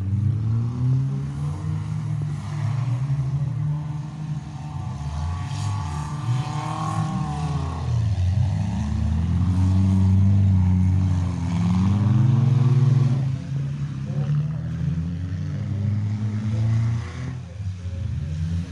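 Several demolition derby car engines running and revving together, their notes rising and falling as the cars accelerate and ease off. The engines are loudest about ten to thirteen seconds in.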